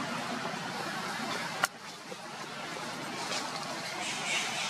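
Steady outdoor background noise, broken by one sharp click about a second and a half in, after which the background is slightly quieter.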